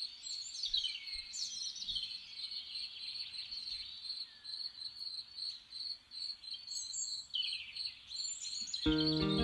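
Songbirds singing falling whistled phrases, twice, over the steady pulsing chirp of crickets. Guitar music comes in just before the end.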